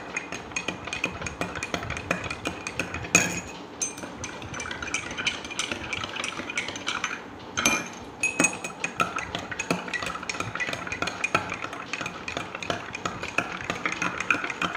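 Metal spoons stirring liquid in two drinking glasses, clinking rapidly and continuously against the glass. There are a few louder knocks of spoon on glass, about three seconds in and again halfway through.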